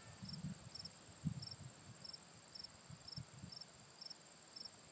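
Insects chirping in the grass: a steady high trill with a shorter chirp repeating about twice a second, under soft low thumps.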